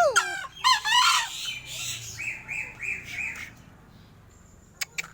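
A crow calling: two loud calls that arch up and down in pitch in the first second, then a run of four shorter, evenly repeated notes, and two sharp clicks near the end.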